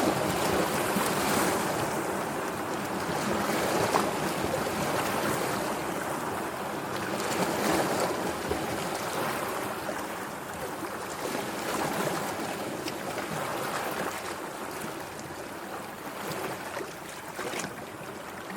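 Sea waves washing in continuously, with slow swells of surf every few seconds that ease off toward the end.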